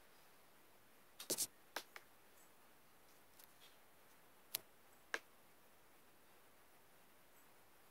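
Sharp plastic clicks and taps from a Boult Audio earbud charging case being handled. There are a few quick clicks just over a second in, two more soon after, then two single clicks about half a second apart, between stretches of near silence.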